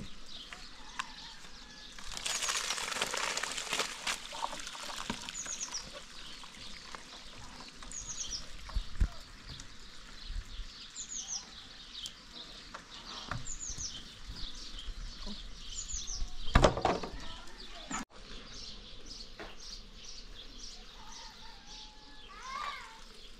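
A small bird repeats a short, high, falling chirp every few seconds. Beneath it come rustling and knocks from plastic basins being handled and dry food being poured from one basin into another, with one loud knock about 17 seconds in.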